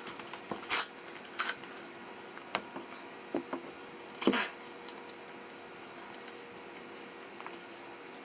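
Faint rustles and a few short clicks as a blood pressure meter's cloth arm cuff is handled and wrapped around an arm. The handling is heaviest in the first half, with the loudest rustles about a second in and again past four seconds, then dies down to a quiet background with a faint hum.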